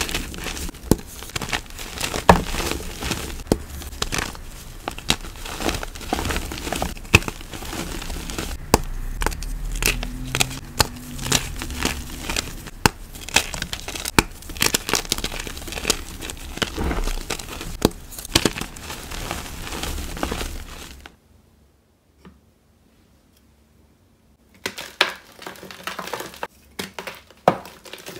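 Hands crushing and crumbling blocks of gym chalk: a dense, crisp crackle of many small crunches and snaps. It cuts off sharply about three-quarters of the way through, and after a few seconds of quiet, softer chalk crumbling starts again near the end.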